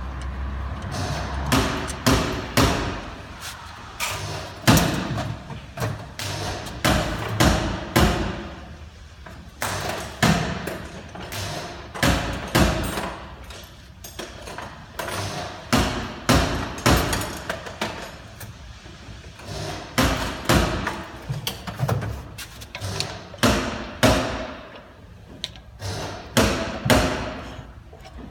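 Irregular thumps and metal clanks of hand tools working on a car's rear brake assembly while it is taken apart, some strikes ringing briefly.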